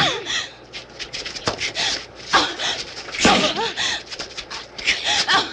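Two women crying out and grunting in short, shrill outbursts as they fight hand to hand, with a sharp slap or blow about a second and a half in.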